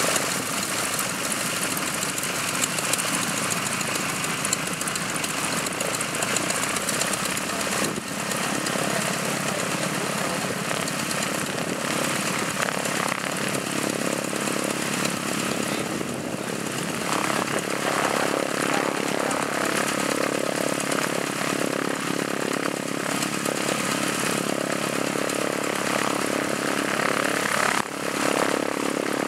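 Harvard IIB trainer's Pratt & Whitney R-1340 Wasp nine-cylinder radial engine running steadily at idle, the aircraft standing still.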